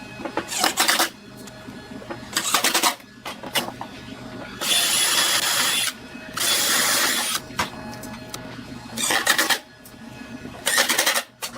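A small power tool run in six short bursts of about half a second to one and a half seconds each, working material, with quieter pauses between the bursts.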